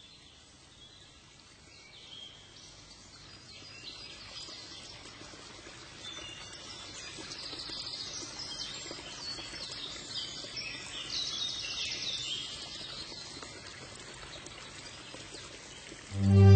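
Small birds chirping and twittering in quick high calls, growing busier a few seconds in. These are not the low coos of doves. Loud string music comes in right at the very end.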